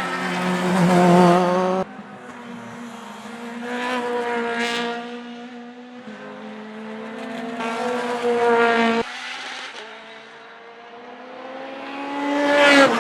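Racing car engines at high revs as cars pass on a circuit, the note swelling and fading four times across several abrupt cuts. Near the end a car goes by close, its pitch dropping sharply as it passes.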